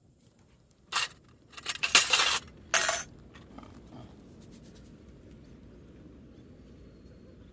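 Metal camp gear being handled and clattering, three short bursts in the first three seconds, then only a faint background.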